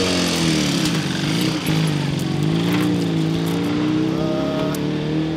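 A vehicle engine running close by, its pitch rising and falling in smooth glides.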